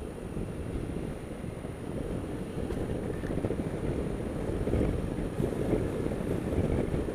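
Wind rushing over a helmet-mounted camera's microphone on a moving Honda Dio scooter, with the scooter's low rumble underneath. It gets a little louder toward the end.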